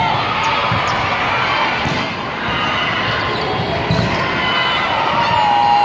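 Volleyball rally on an indoor sport court: sharp hits of the ball against hands and arms over the steady din of a large hall full of other matches. A long steady tone sounds near the end.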